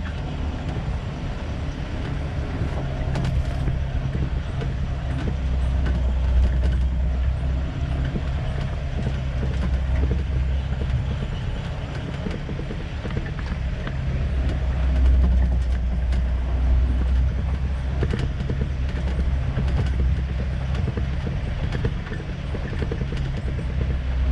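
A motor vehicle's engine running as it drives along a rough track. The engine's low drone swells and eases, with small knocks and rattles throughout.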